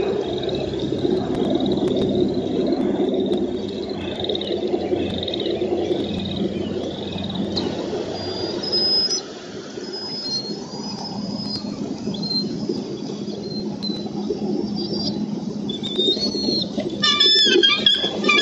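Frogs calling in a steady trilling chorus. After a break about nine seconds in come short, high bird notes, and near the end a bald eagle arrives at the nest with a loud burst of high-pitched eagle calls.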